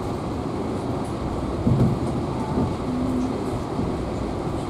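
Steady low rumble of a moving passenger train heard from inside the coach, its wheels running on the rails, with one louder knock a little under two seconds in.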